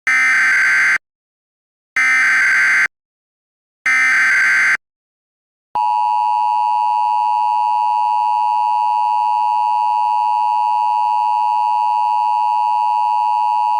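Three one-second bursts of Emergency Alert System digital data tones, about a second apart, marking the end of the alert message. About six seconds in they give way to the steady two-tone EAS attention signal, which holds on unbroken.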